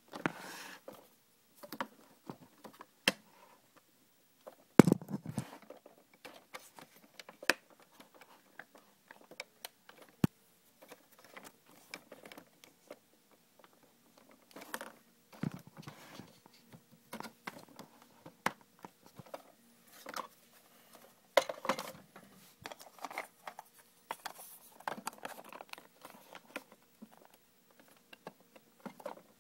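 Hard plastic parts of a Hot Wheels car wash playset being handled: scattered clicks, taps and scrapes, with a louder knock about five seconds in.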